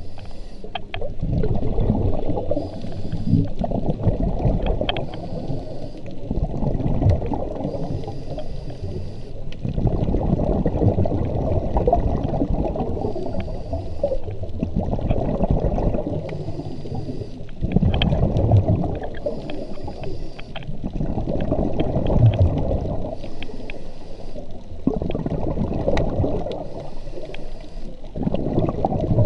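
Scuba diver breathing through a regulator underwater: a short hiss on each inhale, then a longer gurgling rush of exhaled bubbles, about one breath every three to four seconds.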